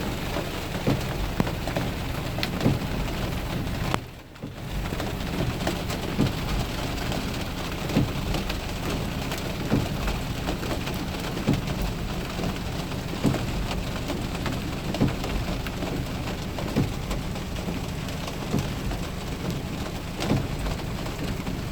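Heavy rain pouring steadily, with short sharp taps every second or two. The sound drops out briefly about four seconds in.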